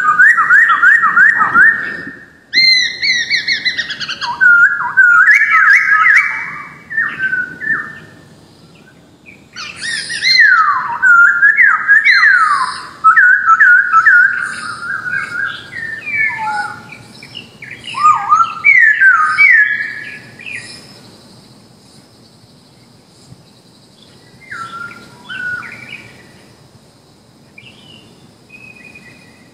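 Masked laughingthrush (poksay hongkong) calling in loud phrases of rapid, repeated sweeping notes, with short pauses between them. Only a few quieter calls come in the last seconds.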